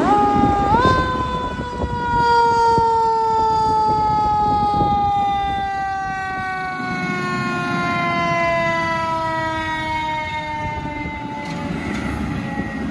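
Fire rescue truck's siren: one tone that jumps up in pitch about a second in, then slowly falls over about ten seconds. The truck's engine is running underneath.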